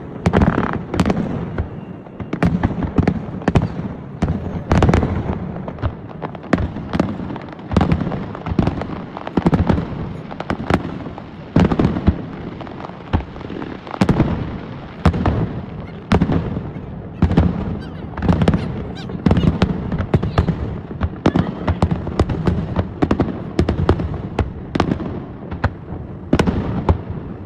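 Fireworks display going off continuously: dense, overlapping bangs several times a second, with crackling between them.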